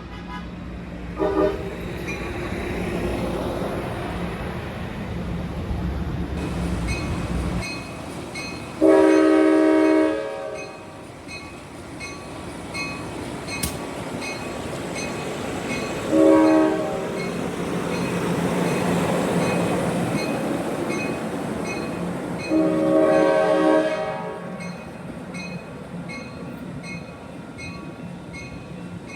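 Amtrak Surfliner train's cab-car horn sounding four blasts spread over about 23 seconds: short, long, short, long. Underneath is the steady rumble and rail noise of the moving train, which swells and fades.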